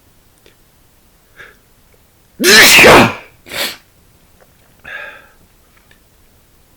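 A man's loud, voiced sneeze, with a brief faint sound a second before it and a second, shorter burst straight after. A softer breathy sound comes about a second and a half later.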